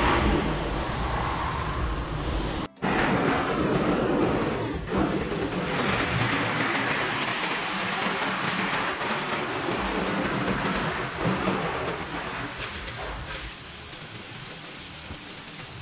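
High-pressure washer lance spraying water onto a car's bodywork, a steady hiss of spray hitting the panels. It cuts out for an instant about three seconds in and grows quieter toward the end.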